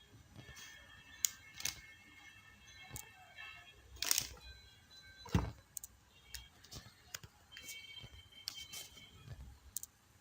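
Small caged pet birds chirping in short, high notes, with scattered sharp clicks and taps among them.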